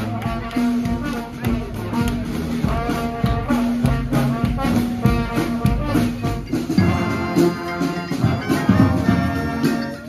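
Brass street band playing live: saxophone, trombone and tuba over a steady beat. About seven seconds in, the music changes abruptly to a different piece.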